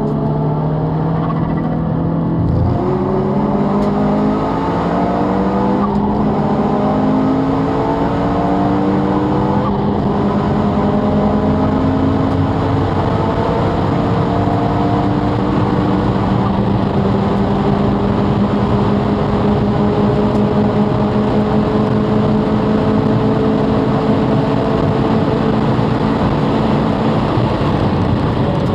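Subaru Impreza WRX STI spec C's turbocharged flat-four engine pulling hard under acceleration. Its pitch drops at a gear change about two and a half seconds in, then climbs slowly and steadily.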